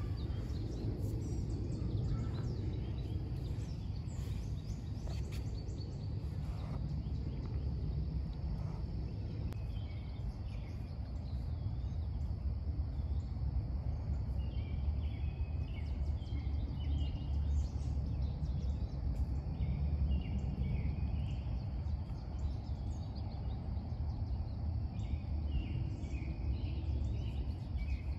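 Outdoor riverside ambience: a steady low rumble, with small birds chirping in short, repeated high notes that come in about a third of the way through and keep going.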